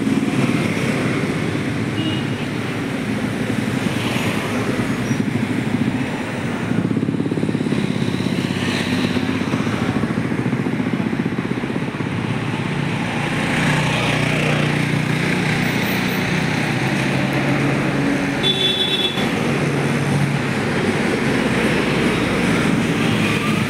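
Road traffic: cars and motorcycles passing steadily, with engine noise stronger in the second half and a brief high beep near the end.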